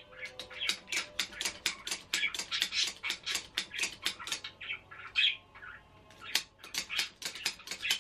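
Pet budgerigar warbling: a fast, uneven stream of short chirps and squawks.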